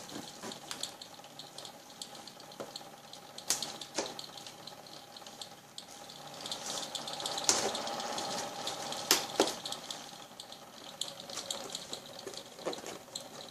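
Cardboard and packaging being handled and opened by hand: irregular rustling and crinkling with scattered sharp clicks and snaps, busiest about halfway through, over a faint steady hum.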